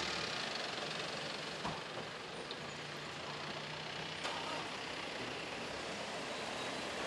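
A vehicle engine idling steadily, with two faint clicks.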